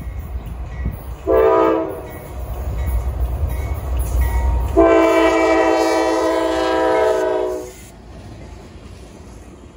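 Norfolk Southern diesel freight locomotive sounding its multi-tone air horn: a short blast about a second in, then a long blast of about three seconds, over the low rumble of the approaching train. After the long blast it drops to a quieter rumble.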